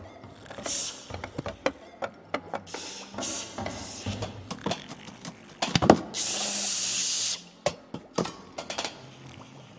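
Cartoon sound effects for sneaking: light clicks and taps, then a sharp knock just before six seconds in, followed by a steady hiss lasting about a second.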